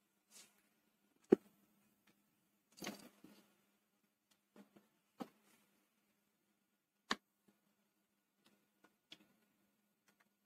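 A wooden spatula stirring noodles in an aluminium pot of boiling water, giving a few separate sharp knocks and clicks against the pot a second or two apart, the sharpest about a second in. A faint steady low hum runs underneath.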